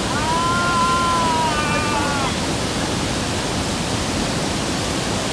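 Steady rushing roar of a large waterfall close by. Over it, a person lets out one long, high, held shout that breaks off about two seconds in.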